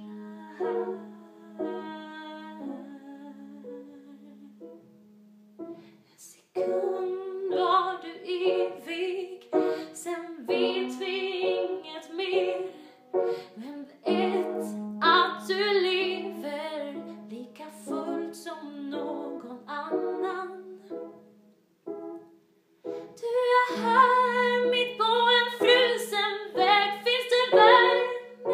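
Music: a woman singing a slow, wordless melody over a long held low instrument note, with two short pauses.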